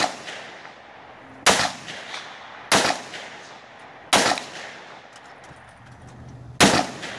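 A handgun fired about five times at a slow, uneven pace, one to two and a half seconds between shots, each sharp crack followed by a short echoing tail. The gun is new and is being broken in.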